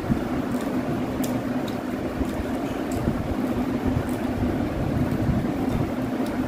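Electric fan running steadily with a low hum and rushing air, with a few faint clicks over it.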